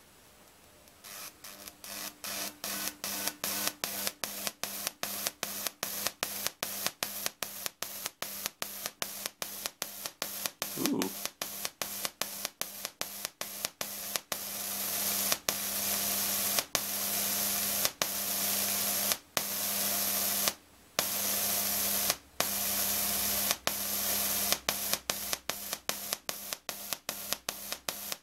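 Small half-bridge solid-state Tesla coil throwing a purple spark into the air. The spark hisses in short pulses about three times a second, set by an interrupter tuned for a pulsing flame-like spark. Partway through, the pulses run longer with brief breaks, over a steady low hum.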